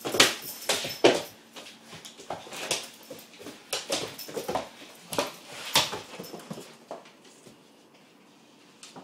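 A Great Dane romping with ferrets on a wooden floor: irregular thumps and claws scrabbling and clicking on the boards, with a few short dog whimpers. The commotion is busiest in the first seconds and dies down after about seven seconds.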